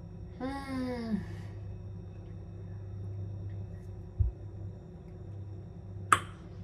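A woman's breathy, appreciative "mmm" that falls in pitch, just after a sip of protein shake through a straw. A low steady hum runs underneath, with a short dull thump about four seconds in and a sharp click near the end.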